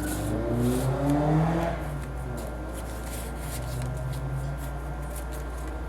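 Paper pages and tags of a handmade junk journal rustling lightly as they are handled, over a steady low hum. A louder pitched drone swells and fades in the first two seconds.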